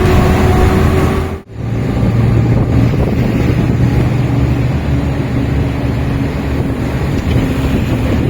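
Vehicle engine running steadily with wind noise on the microphone, cut off abruptly about a second and a half in and followed by steady engine and wind noise with a low hum.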